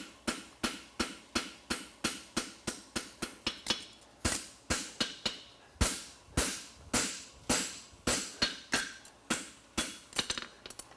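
Farrier's hammer striking a steel horseshoe on an anvil, a steady run of sharp ringing blows about three to four a second, a little slower after about four seconds in.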